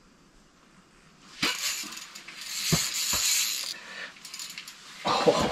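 Mechanical ratcheting clicks from a spinning fishing reel as a brook trout takes the jig. About five seconds in, water splashing starts as the hooked trout thrashes in the ice hole.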